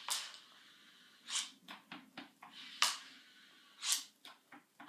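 Diabolo being spun up on its string with hand sticks: four short swishes, about one every second and a half, as the string whips around the spinning axle.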